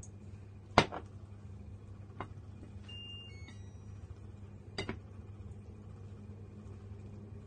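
A few sharp clinks on a ceramic plate from a small glass sesame-oil bottle and wooden chopsticks, the loudest about a second in, a lighter one near two seconds and a double clink near five seconds, over a steady low hum. A brief high tone sounds about three seconds in.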